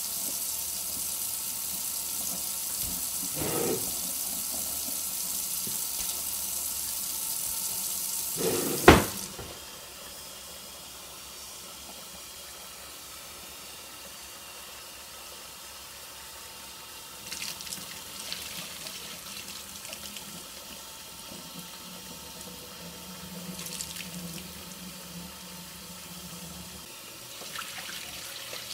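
Kitchen tap running cold water, the stream splashing into an empty ceramic sink with a steady hiss. About nine seconds in comes one sharp metal clunk as a stainless steel pot is set in the sink. The water then falls into the pot of freshly boiled eggs to cool them, quieter and duller, with occasional splashes as water is poured off.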